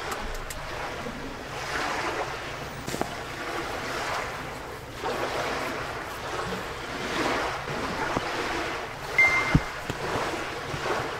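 Lake waves washing onto the shore, heard from inside a tent, swelling and fading every second or two. About nine seconds in there is a short high tone and a thump.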